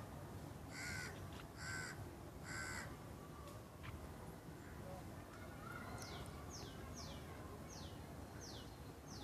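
A bird in the background gives three harsh calls about a second apart, then from about six seconds in a string of short, high, falling chirps repeats roughly twice a second, over a faint steady background noise.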